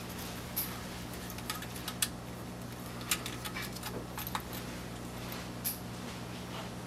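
Light, scattered clicks and small rattles of a USB flash drive being handled and pushed into a port on a USB hub, over a steady low hum.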